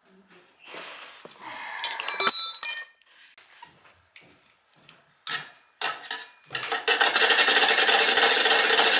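Metal tools and oil burner parts clinking and clattering, with short ringing tones, then a few scattered clicks. About seven seconds in, a loud steady rushing hiss starts and holds.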